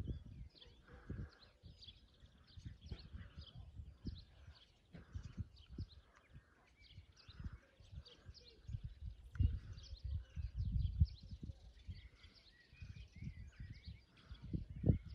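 Wild birds chirping and singing in short high calls throughout, over irregular low rumbling bursts, the loudest of them about nine to eleven seconds in and near the end.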